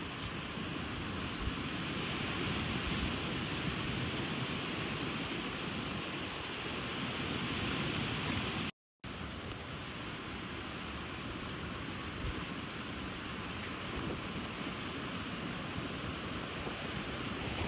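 Steady rushing outdoor ambience, an even noise with no distinct events, broken by a brief dropout about nine seconds in where the recording cuts.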